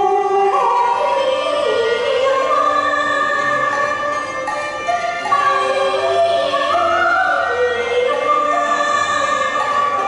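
A woman singing a Cantonese opera-style song into a microphone over instrumental backing, with long held notes that slide in pitch.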